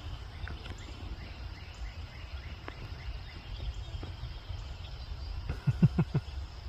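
Outdoor woodland ambience: a steady low rumble with faint, scattered bird chirps. A few low thumps come close together near the end.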